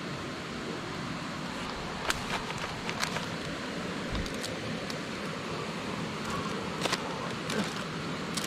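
Open wood cooking fire crackling, with a few sharp pops about two, three and seven seconds in, over a steady rushing noise of a river.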